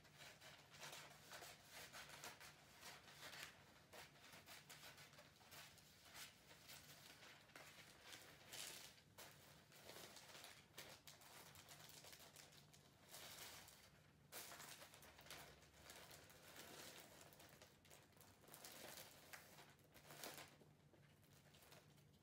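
Faint rustling and crackling of wrapping paper being handled, in quick irregular bursts, over a low steady hum.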